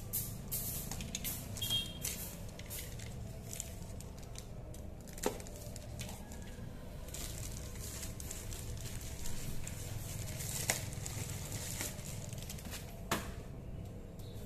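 Headphone packaging being handled and opened: scattered crinkles, rustles and clicks of plastic and cardboard, with a few sharper clicks, over a steady low hum.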